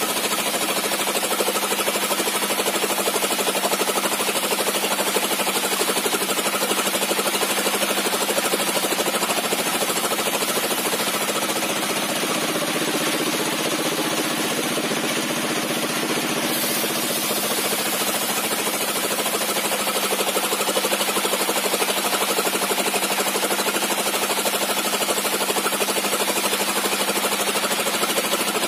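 Sawmill bench saw with a 60 cm zigzag-tooth circular blade ripping a squared timber lengthwise into boards, with the engine that drives it running steadily.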